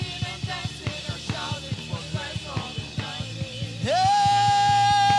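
Live gospel praise band playing to a steady drum beat with sung lines over it. Near the end a voice slides up into one long held note.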